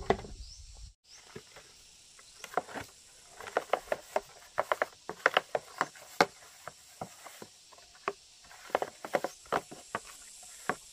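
Irregular light clicks and rustles coming in small bunches, over a faint steady hiss.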